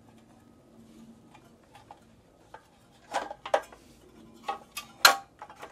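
Clinks and knocks of a small engine's cover, the shroud that carries the recoil starter, being worked into place by hand. A few sharp taps come in the second half, the loudest about five seconds in.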